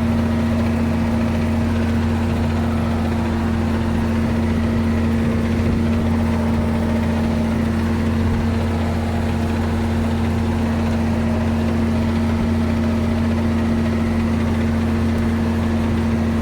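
Ford 9700 tractor's six-cylinder diesel engine running at a steady, unchanging speed, driving a manure spreader through the PTO.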